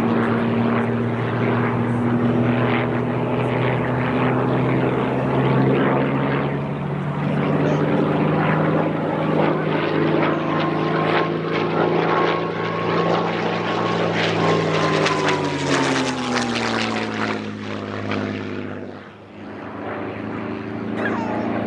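Piston-engined propeller warplane flying past: a steady engine drone whose pitch falls as it goes by, about three-quarters of the way through, followed by a brief drop in loudness before the engine sound returns.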